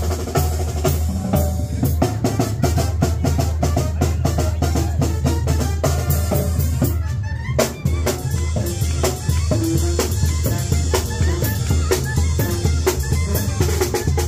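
Loud live-sounding music driven by drums: rapid bass-drum and snare hits over a steady low bass line, with melodic lines above.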